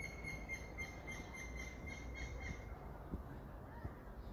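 A bird calling: a run of quick, even notes on one steady high pitch, about three seconds long, that then stops. Under it is a low steady rumble.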